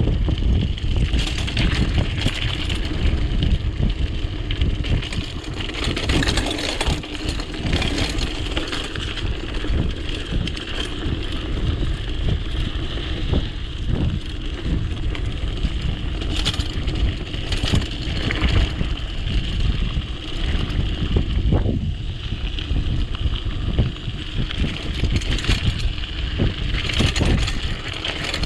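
Btwin Rockrider ST 540S hardtail mountain bike ridden fast down a rough dirt trail: a steady rumble of tyres over ground and roots, with frequent rattling and clanking from the bike.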